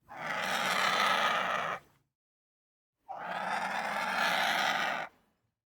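Vulture sound effect: two hisses of about two seconds each, a second apart.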